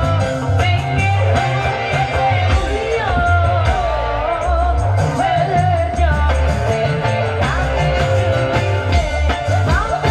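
Kecimol band music: a sung melody with an amplified band, over a steady, loud beat from the marching bass drums.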